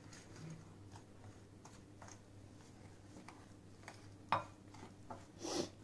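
Spoon stirring a wet spice marinade in a bowl: faint scraping with light clinks against the bowl and one sharper click about four seconds in.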